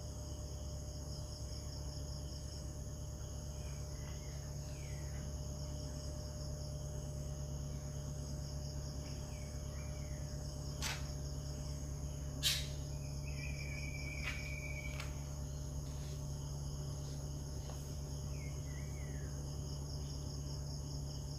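Insects chirping steadily in high pulsing trains, over a low steady hum. A short gliding chirp-like call repeats about every five seconds, and a few sharp clicks come, the loudest about halfway through.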